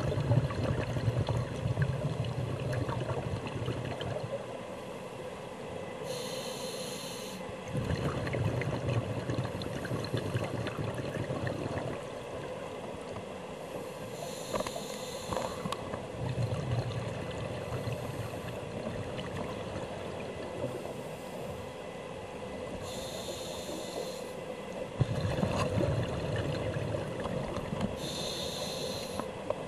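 Scuba diver breathing through a regulator underwater, about four breaths. Each breath is a short hiss on the inhale, then a longer rumble of exhaled bubbles.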